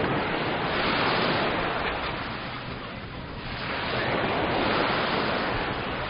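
Mediterranean surf washing onto the beach, the noise of the waves swelling and ebbing twice.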